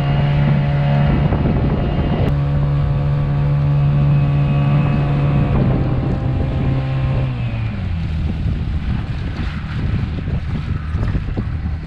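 Honda GX50 50cc four-stroke air-cooled outboard engine running at steady high throttle, then throttled back about seven seconds in, its pitch dropping. Wind on the microphone and water splashing over the rest.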